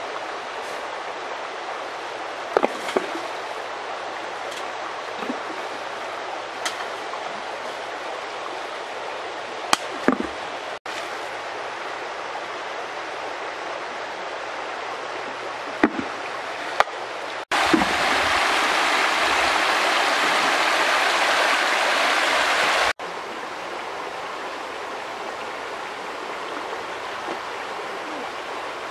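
Shallow stream flowing with a steady rush, broken by a few short splashes from people wading and groping in the water. For several seconds past the middle the water is louder and closer.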